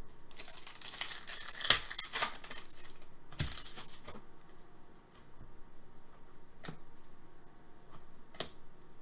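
Hockey card pack wrapper being torn open and crinkled for about two seconds, a shorter rustle a second later, then a few light clicks as the cards are handled.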